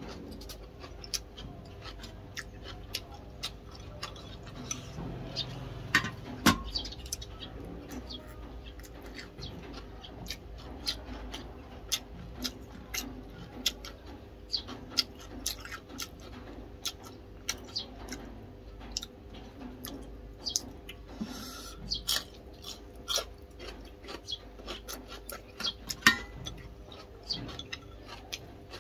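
A person chewing food up close, with irregular sharp wet clicks and smacks every second or so and a few louder ones about six seconds in and again near the end.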